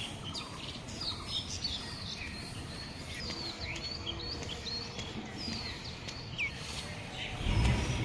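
Several birds chirping at once, many short, quick notes and brief whistled glides overlapping, over a low background rumble. A louder low rumble comes near the end.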